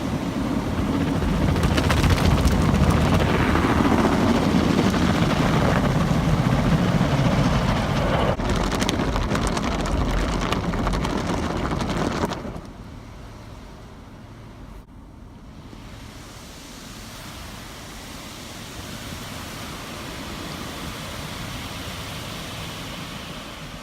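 Automatic drive-through car wash machinery heard from inside the car: a loud, steady rush of spraying water and blowing air. It drops suddenly to a quieter rush about twelve seconds in, then slowly swells again.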